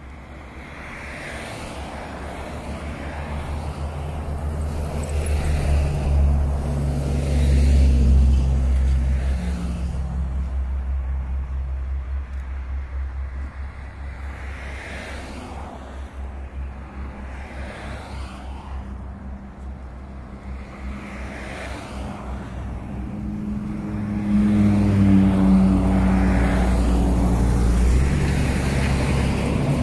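A motor vehicle engine running on the move over a heavy low rumble, its pitch climbing in steps twice as it speeds up.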